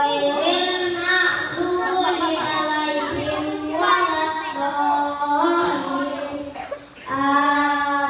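A young boy singing a melody into a handheld microphone, holding each note before moving to the next, with a short break near the end.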